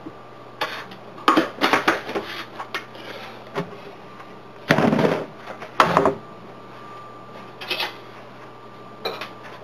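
Kitchen clatter as a scoop of protein powder is added to a mug of coffee: scattered knocks and taps of scoop, cup and containers, with a louder rustling burst about five seconds in.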